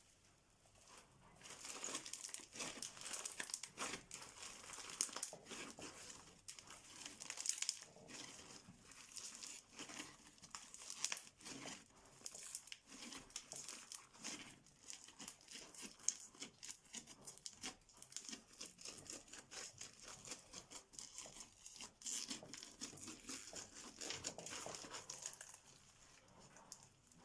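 Crunchy, sticky slime being squeezed and worked by hand, giving a dense, continuous crackle of tiny pops and clicks. It starts about a second and a half in and fades out near the end.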